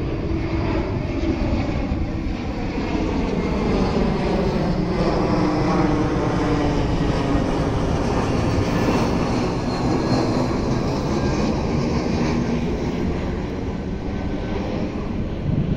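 Jet airliner on landing approach passing close by: a steady engine roar whose whining tones slowly fall in pitch as it goes past.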